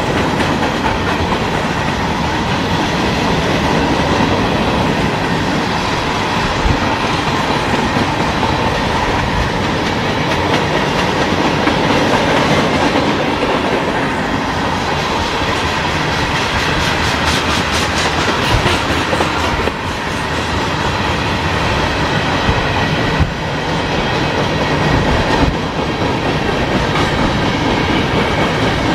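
Freight train cars, covered hoppers and tank cars, rolling past: the steady noise of steel wheels on the rails, with a run of quick, even ticks a little past halfway.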